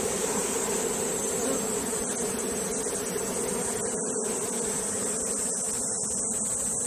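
A mass of Korean native honeybees buzzing steadily around their nest in a hollow tree, a continuous dense hum. A steady high-pitched hiss runs alongside it.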